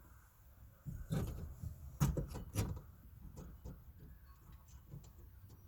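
Clunks and light rattling clicks of metal parts being handled and fitted inside a pickup's rear door during a window regulator install. The heaviest knocks come about one, two and two and a half seconds in, with lighter clicks after.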